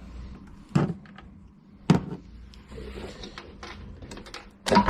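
Three sharp plastic knocks, with faint rustling between them, as a broken car side mirror is worked loose and lifted off the door.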